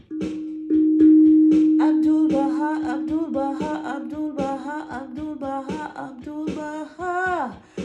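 Steel tongue drum struck repeatedly with mallets, a low note ringing on, loudest about a second in. A woman's voice sings along without clear words from about two seconds in.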